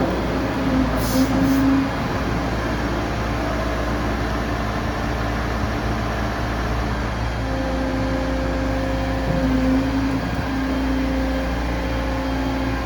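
Yanmar B95W wheeled excavator's diesel engine running steadily, with a pitched whine that comes and goes over it and a brief hiss about a second in.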